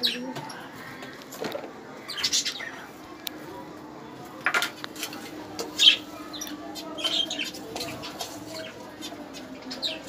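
Cage birds in a wire aviary giving short scattered chirps, with sudden bursts of wing fluttering and rustling, the loudest about four and a half and six seconds in.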